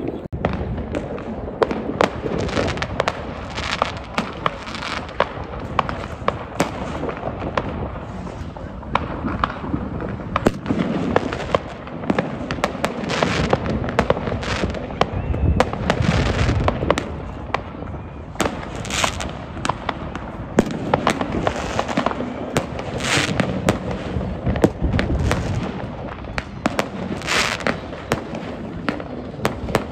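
New Year's Eve consumer fireworks going off all around: rockets, firework batteries and firecrackers. They make a continuous stream of bangs, pops and crackles, with a few longer bursts in the second half.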